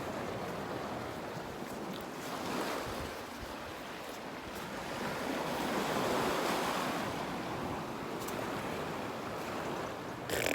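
Sea waves washing on the shore, with some wind. The wash swells louder a little past halfway.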